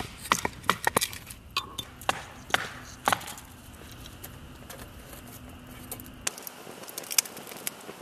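Small hatchet chopping firewood on a wooden block: about seven sharp wooden knocks over the first three seconds. Then a wood fire crackles quietly with scattered small pops.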